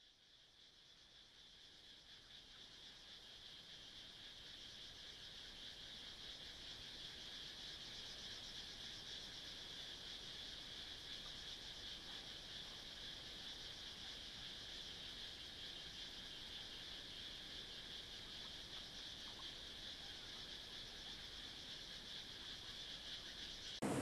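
Steady, high-pitched chirring of an insect chorus, fading in over the first several seconds and then holding even.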